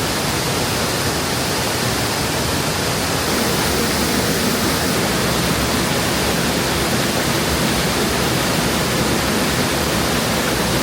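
Waterfall rushing: a loud, steady roar of falling water, with no change in level.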